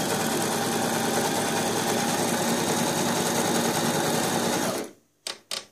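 Brother XL-6053 household sewing machine running steadily at speed, sewing a scallop stitch at minimal stitch length. It stops suddenly near the end, followed by a couple of short clicks.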